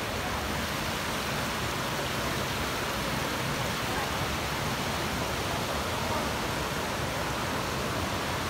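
Steady rush of a waterfall and its creek pouring over rocks.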